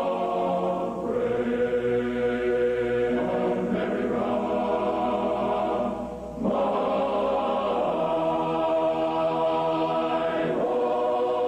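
Choir singing long held chords that change every few seconds, with a brief drop in level about six seconds in.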